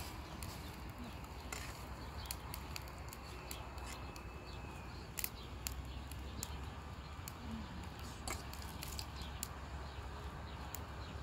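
Open wood fire in a clay hearth crackling, with irregular sharp pops over a steady low rumble of burning.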